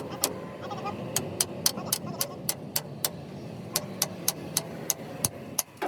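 Rapid, regular sharp taps, about four a second with a brief pause midway, over a steady background noise.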